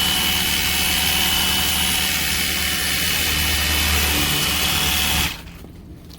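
Cordless handheld pressure washer spraying: a steady motor-and-pump whine over the hiss of the water jet. It cuts off suddenly about five seconds in.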